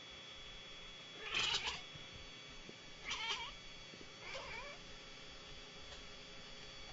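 A cat meowing three times, about a second apart, each call fainter than the last.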